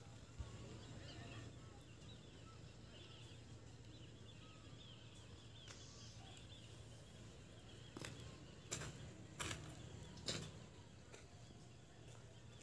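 Faint open-air ambience with distant birds chirping, then a few sharp clicks and knocks about two-thirds of the way through.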